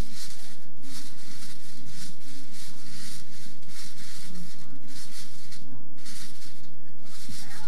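A trampoline's springs and mat under two children bouncing, heard as repeated short noisy swishes about once or twice a second.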